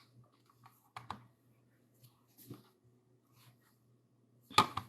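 Light handling noises on a workbench: a few faint clicks about a second in and again midway, then a sharper click or knock near the end, over a low steady hum.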